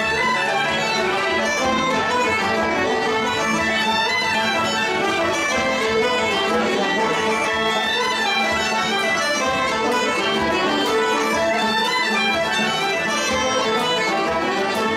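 Live traditional Irish session: several fiddles leading a tune in unison, with a flute and plucked strings such as mandolin and guitar playing along, steady and unbroken.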